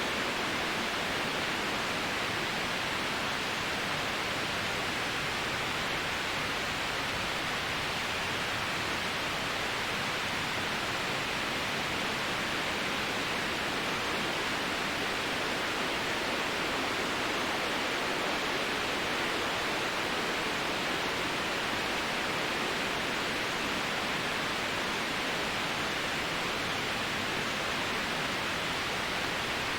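Steady white-noise sleep sound: an even, unchanging hiss with little bass.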